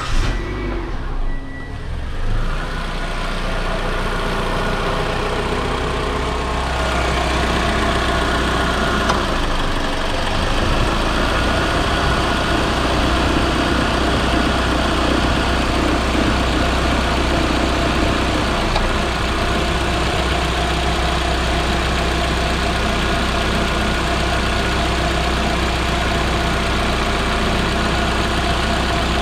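Proton Inspira (Mitsubishi Lancer 2008) engine idling steadily, its accessory drive belt turning over a new auto-tensioner and idler pulleys. The engine is running fine with the new belt parts in place.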